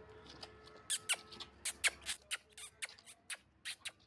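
Calf suckling from a goat's udder: a run of sharp, wet smacking clicks, about four a second, starting about a second in.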